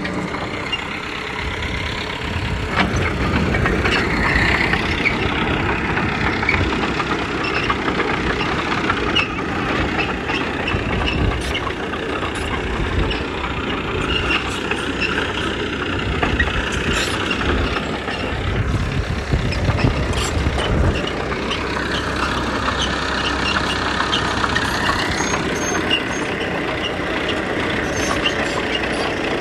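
Diesel earthmoving machinery running steadily under work, with scattered metallic clanks and a higher whine for a few seconds about three-quarters of the way through.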